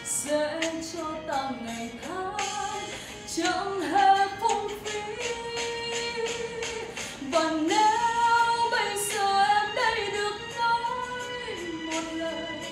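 A woman singing a song, holding long notes that glide between pitches.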